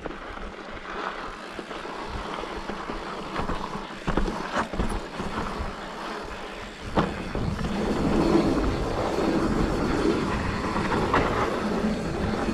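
Mountain bike rolling down loose, dusty dirt singletrack: tyres crunching and rumbling over dirt and stones, with sharp clacks of the bike rattling over bumps a few times. Louder and busier from about seven seconds in.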